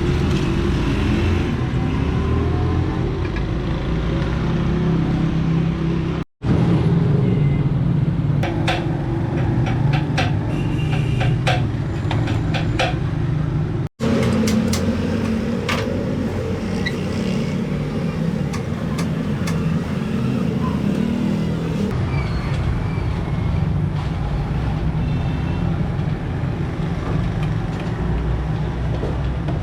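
Steady low rumble of workshop background noise, with scattered sharp taps and clicks through the middle stretch. It cuts out abruptly twice, at edits.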